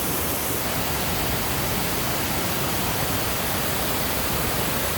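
Steady rush of a waterfall, water crashing down.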